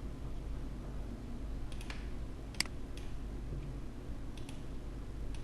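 A few scattered, sharp clicks at a computer, the strongest about two and a half seconds in, over a low steady hum.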